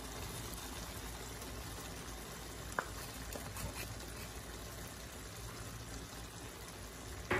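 Meatballs in tomato sauce simmering in a frying pan: a steady soft bubbling, with one light click nearly three seconds in.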